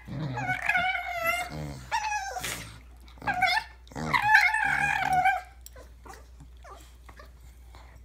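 Dog making drawn-out, wavering play vocalizations in about four bouts while wrestling with a puppy, the longest near the end; they stop about five and a half seconds in.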